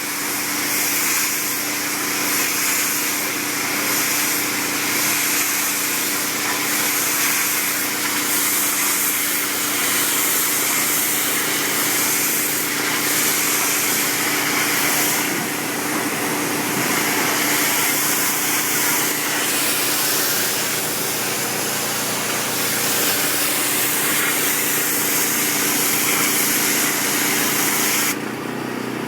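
DeWalt DPW4240 gas pressure washer running steadily, its engine under a loud hiss of high-pressure water spray. Near the end the spray stops and the engine runs on.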